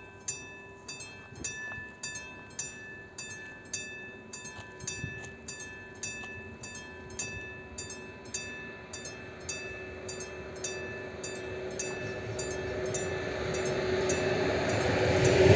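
Level-crossing warning bell ringing in evenly repeated strokes. Over the last few seconds an approaching train's rumble grows steadily louder.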